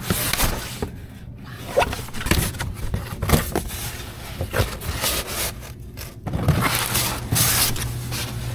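Cardboard collectible boxes being rummaged through and handled, scraping and rustling against each other with occasional knocks. A steady low hum comes in about six seconds in.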